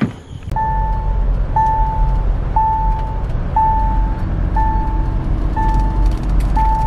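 Mahindra Thar's dashboard warning chime, a steady single-pitched beep repeating about once a second, over the low rumble of the SUV's engine and tyres inside the cabin.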